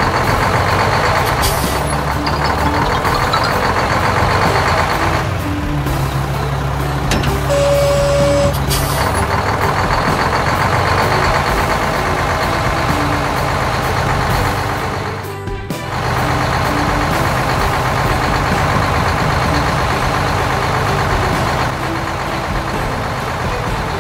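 Truck engine sound effects for a semi-truck running and driving, over background music, with a single short beep about seven and a half seconds in.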